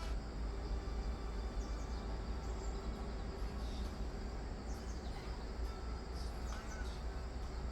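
Outdoor ambience: a steady low rumble with short bird chirps now and then.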